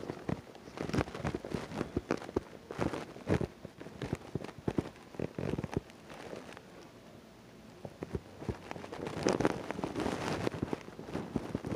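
Scattered soft clicks and rustles from the recording phone being handled, over a faint hiss, quieter for a couple of seconds just past the middle. No noise comes from the apartment being checked.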